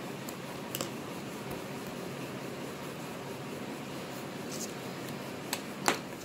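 Steady fan-like room hum, with a few light clicks and taps from craft materials being handled on a table top: two small clicks about a second in, and a sharper tap near the end.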